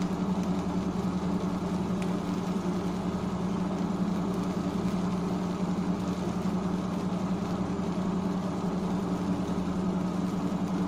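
Spice masala frying in oil in a nonstick pan, a soft sizzle under a steady low mechanical hum.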